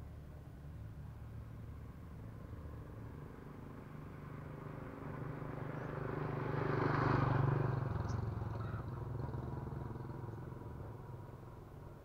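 A motorbike passing along the lane. Its engine hum builds steadily, is loudest about seven seconds in, then fades away.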